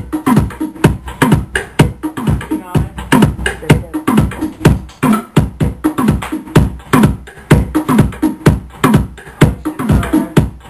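Car sound system playing bass-heavy Brazilian funk (batidão) at high volume: deep bass kicks that drop in pitch, several a second.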